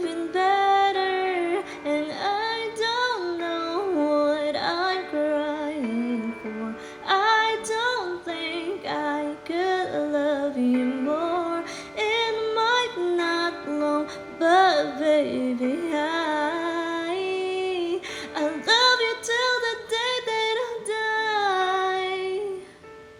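A woman singing a slow, sustained pop melody with instrumental backing, the voice bending between held notes.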